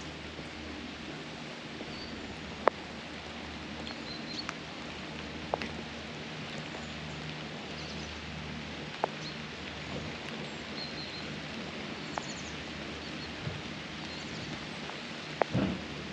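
Ambient background: a steady hiss with a low hum, a few faint high chirps, and a handful of sharp isolated clicks, with a louder knock near the end.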